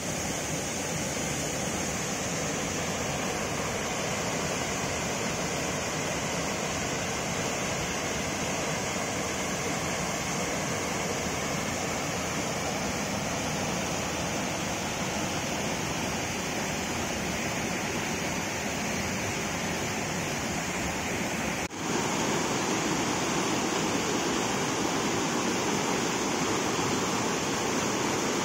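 A muddy river in monsoon flood rushes over rocks and a low stone weir in whitewater rapids, making a steady noise of churning water. It drops out for a moment near the end, then comes back slightly louder.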